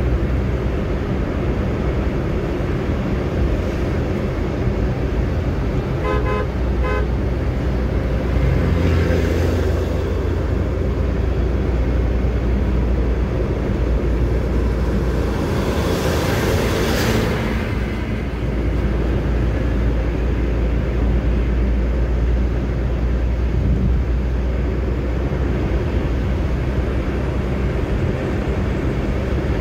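Steady low road and engine rumble heard from inside a car cruising on an expressway. About six seconds in there are a few short horn toots, and there are two brief swells of rushing noise later on.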